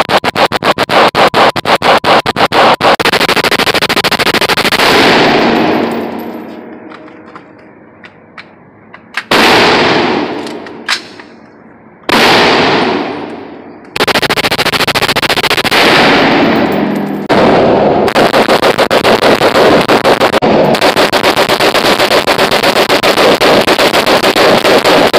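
Rapid strings of gunfire from AR-15-style guns in an indoor range, the shots coming in fast runs of many rounds. The runs are separated by a few pauses with only scattered single shots.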